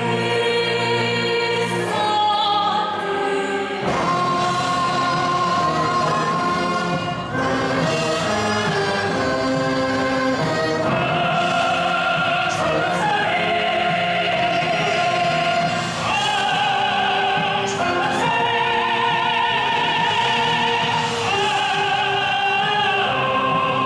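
Live performance by a military concert band with singing and a choir: sustained vocal lines with wide vibrato over full band accompaniment, the melody moving through a series of long held notes.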